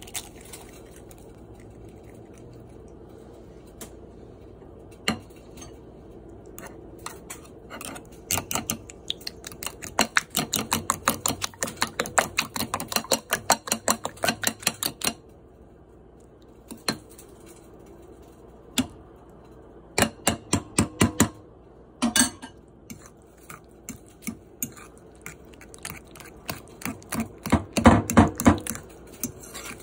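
Metal spoon clinking against the side of a bowl in quick runs of strokes while beating an egg into thick banana, rice and quinoa pancake batter. The runs start and stop several times, with short pauses between them.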